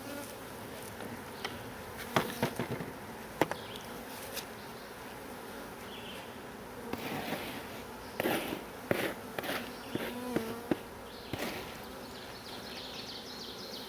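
Honeybees buzzing steadily around an open hive, with sharp wooden clicks and knocks as hive frames are handled, in clusters a couple of seconds in and again past the middle.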